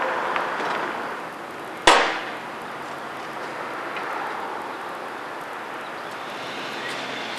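Steady outdoor background noise, with one sharp knock about two seconds in that rings out briefly.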